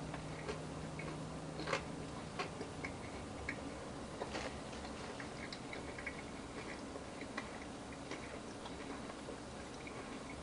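Faint, irregular mouth sounds of a person chewing a bite of cooked meat, with scattered small clicks and a few sharper taps in the first couple of seconds.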